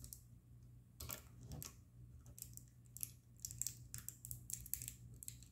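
Faint clicking and crinkling of the MC-10 keyboard's flat ribbon cables as fingers work them into their connectors on the circuit board. The clicks come thicker in the second half, over a steady low hum.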